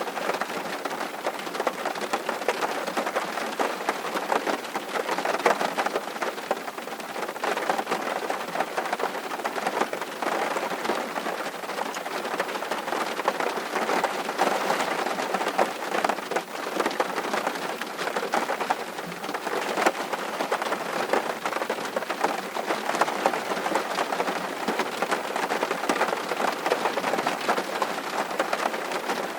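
Steady rain falling and pattering on a surface, an even dense hiss with many small drop ticks and no breaks.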